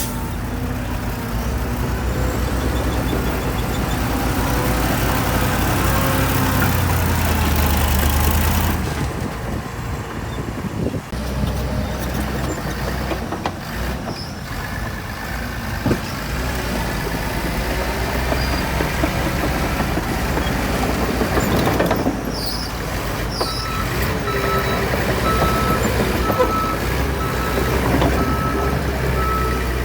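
Heavy diesel earthmoving machinery running steadily under load, with an abrupt change in the engine sound about a third of the way in. Near the end a reversing alarm beeps repeatedly.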